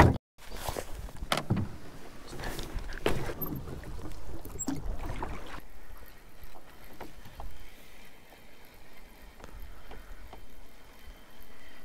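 Rowboat being rowed: oars dipping and splashing in an irregular run of strokes. About halfway the sound changes suddenly to a quieter, more even water sound.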